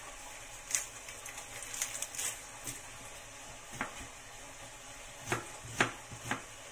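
Steady sizzle of food frying in an oiled pan, with several sharp knocks of a knife on a cutting board as a red onion is cut, the loudest near the end.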